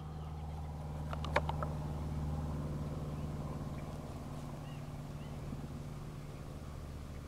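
A sleeping grey horse snoring: a low, steady snore that swells about two seconds in and then slowly fades. A few sharp clicks about a second in.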